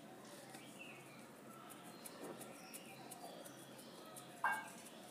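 Faint bird calls in the background, with one short, louder chirp near the end.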